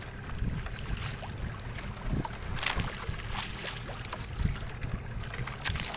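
Steady low rumble of wind and water around the microphone, with a few faint clicks and knocks scattered through.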